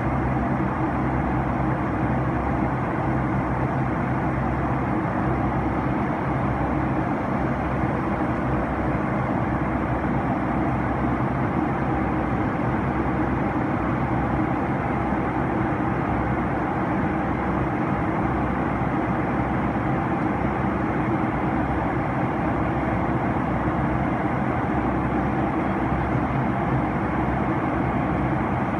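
Steady cabin noise of a Boeing 757-200 in flight, heard from a window seat beside the wing-mounted turbofan engine: the engine's even drone and rushing airflow, over a steady low hum.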